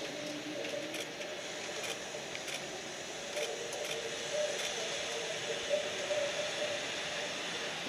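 Boeing 787 airliner taxiing with its jet engines at idle: a steady rushing hiss with a faint hum.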